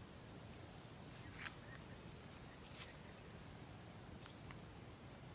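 Water buffalo grazing: a few faint sharp snaps and rustles from the grazing herd, the sharpest about a second and a half in, over a steady high drone of insects.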